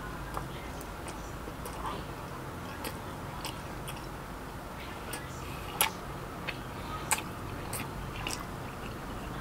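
A person chewing and biting into a McDonald's chicken Korean burger close to the microphone: soft wet mouth clicks throughout, with a couple of sharper smacks about six and seven seconds in, over a low steady hum.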